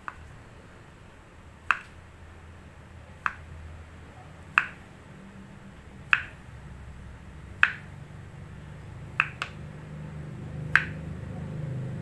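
Kitchen knife blade knocking on a wooden cutting board as each thin slice of tempeh is cut through: about nine sharp knocks, roughly one every second and a half.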